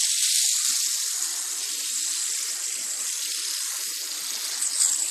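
A steady hiss, strongest in the treble.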